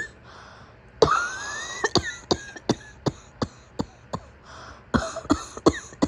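A sick woman's coughing fit: about a second in, a longer, strained cough rising in pitch, then a rapid string of about a dozen short, sharp coughs.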